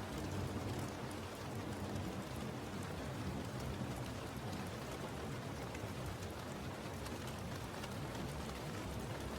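Steady rain falling on a surface, a constant hiss of drops with a low rumble underneath.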